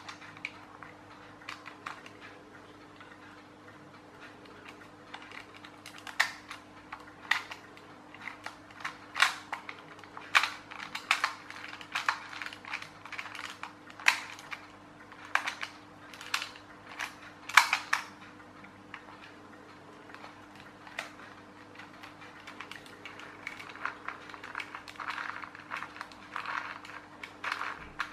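Irregular sharp clicks and light knocks of small plastic parts as a clockwork toy tractor's clear plastic gearbox and its plastic gears are handled and turned by hand, with a softer run of quick clicking near the end.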